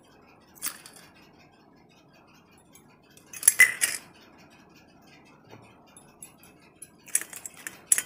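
Gold bangles and a gold necklace clinking against a stainless steel bowl and each other as they are set into the water, in three bursts of clinks. The loudest burst comes about halfway through.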